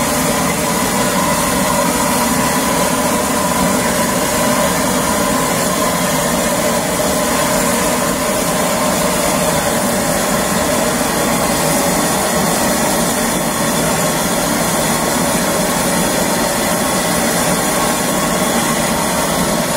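Long-wand propane torch burning steadily with a loud rushing flame, its blast driven into a kettle grill full of charcoal to light the coals.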